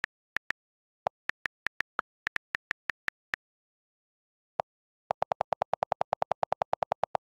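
iPad on-screen keyboard clicks. In the first three and a half seconds there are irregular, higher typing ticks as letters are entered. About a second after a pause, a single lower click is followed by a fast run of about ten lower clicks a second as the delete key is held down, erasing text.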